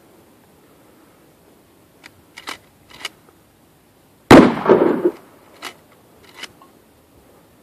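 A single shotgun shot about four seconds in, its report echoing and dying away over about a second. A few sharp clicks come shortly before it.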